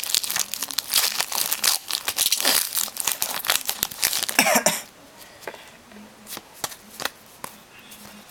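Foil wrapper of a trading card pack being torn open and crinkled for about five seconds, then fainter scattered clicks and rustles of the cards being handled.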